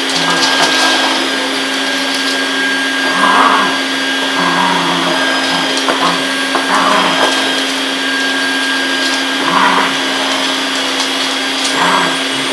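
Vacuum cleaner running steadily, with short, louder sounds breaking in every two to three seconds.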